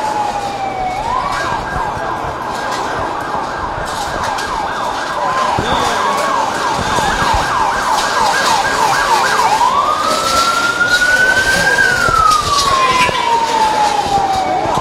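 Emergency vehicle siren cycling through its patterns: a falling wail, then a fast yelp for about eight seconds, then a slow wail that rises and falls again, over street commotion.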